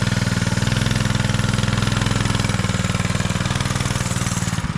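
Mini bike's 212cc single-cylinder four-stroke engine running steadily under throttle as the bike pulls away, backing off briefly near the end.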